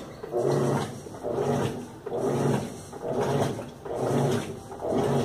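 Top-loading washing machine agitating: its motor gives a pitched hum or groan with each stroke, repeating about once a second.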